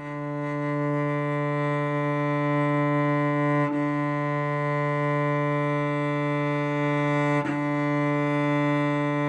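Cello playing one long bowed low D, held steady at a quiet mezzo piano with little arm weight on the bow, with two brief breaks in the tone where the bow changes direction.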